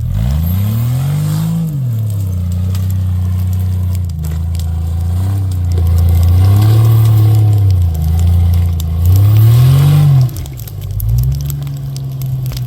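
Off-road vehicle engine revving up and back down several times under load, as on a rock-crawling climb. The highest and loudest rev comes near the end, then the engine drops back suddenly.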